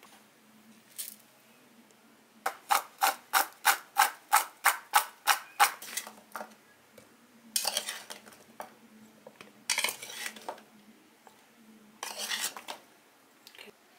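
Metal spoon scraping and clinking against a plate: first a quick, even run of about fourteen strokes, then three longer, separate scrapes as pieces of chopped guava are scooped up.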